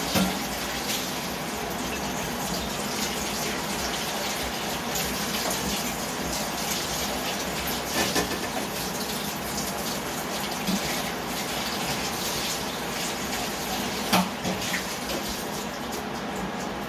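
Kitchen tap running steadily into a sink, with a few light knocks.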